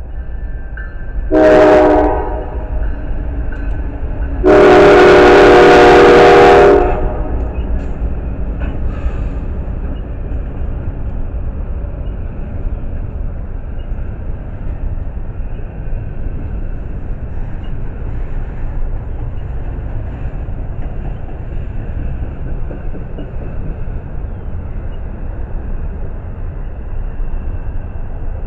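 Norfolk Southern GE CW44-9 lead locomotive's multi-note air horn sounding a short blast, then a loud long one a couple of seconds later. Then comes the steady low rumble of the slow-moving double-stack intermodal train passing.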